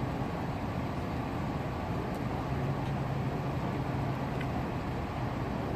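Steady street and vehicle noise: an engine idling and traffic running, with a low, even hum throughout.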